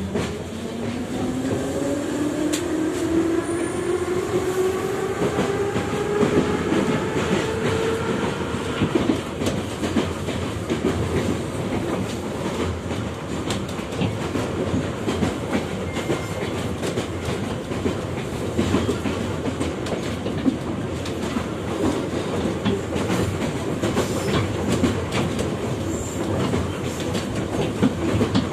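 Type E metro train heard from inside the carriage as it pulls away: the traction motors whine, rising in pitch over the first several seconds as it gathers speed. It then runs at speed with steady wheel rumble and the clickety-clack of rail joints.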